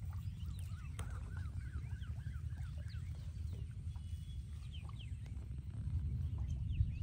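Birds chirping: a quick run of short, arched calls about a second in, then a few scattered calls, over a steady low rumble.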